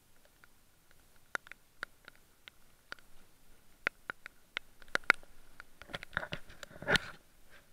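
Shallow lake water dripping and lightly splashing, heard as scattered small clicks. The clicks come more often from about five seconds in, and a louder rubbing, splashing burst of the camera being handled comes about seven seconds in.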